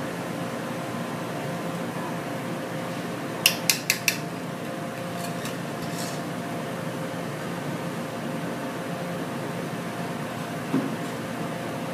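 Steady fan hum, broken about three and a half seconds in by a quick run of four sharp metallic clinks as a saucepan and spoon are set down on the counter. A fainter clink follows later.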